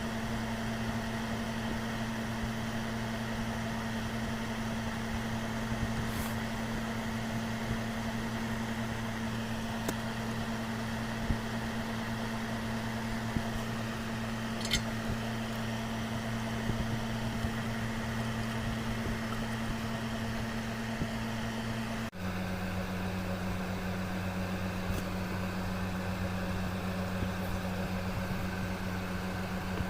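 Steady low mechanical hum with a few faint clicks. About two-thirds of the way in it breaks off and carries on at a slightly lower pitch.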